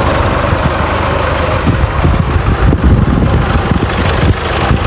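New Holland farm tractor's diesel engine running as the tractor drives across a field: a loud low rumble with an uneven chugging beat.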